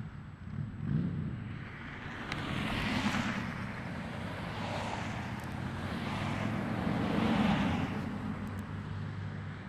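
Traffic on a nearby road: a steady low rumble with vehicles passing, swelling and fading about three times.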